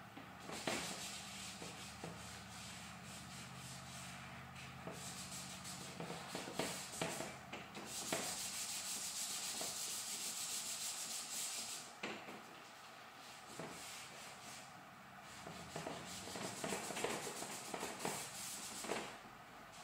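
Charcoal being worked into drawing paper: a hand rubbing and stroking charcoal across the sheet, a dry scratchy hiss made of many short strokes. It is loudest for a few seconds in the middle.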